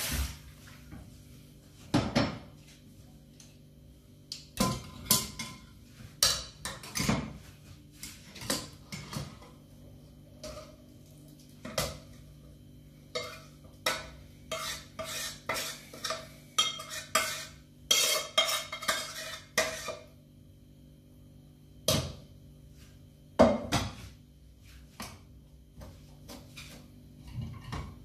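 Metal spoon and stainless-steel pots and mesh strainer clinking, scraping and knocking together in irregular clusters, as wet ground sprouted-wheat mash is poured and pressed through the strainer to draw off its sweet juice for samanak.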